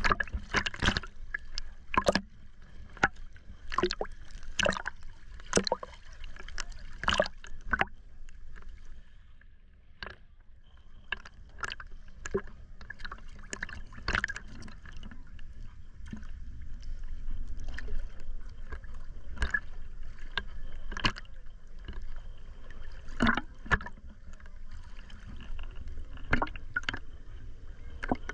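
Shallow sea water lapping and splashing against a waterproof camera held at the surface: irregular slaps and splashes over a steady low wash, easing off briefly around ten seconds in.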